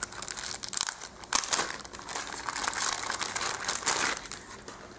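Thin clear plastic bag crinkling in irregular rustles as it is pulled off a small plastic stand.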